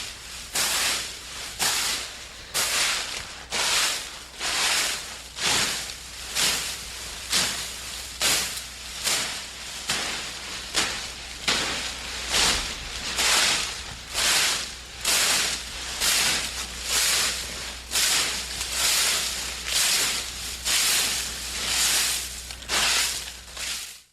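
A rake dragged through dry leaves in steady strokes, about one a second, each a scraping rustle with quieter rustling between.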